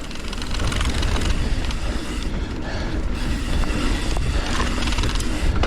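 Mountain bike rolling down a loose dirt trail: a steady rumble of wind on the microphone and tyre noise, with scattered light clicks and rattles from the bike.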